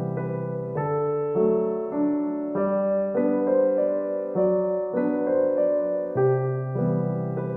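Background music: a gentle piano-like keyboard tune, its chords changing about every half second.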